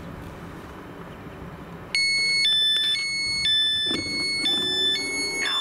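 Door-closing warning signal of an Alstom Coradia Continental class 1440 electric multiple unit: a loud beep alternating between a higher and a lower tone, each about half a second, starting about two seconds in over a steady background hum. It warns that the doors are about to close.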